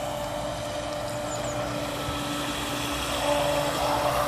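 Electric motor of an RC Miss GEICO model speedboat running with a steady whine as the boat spins in tight circles and then runs across the water, getting a little louder about three seconds in.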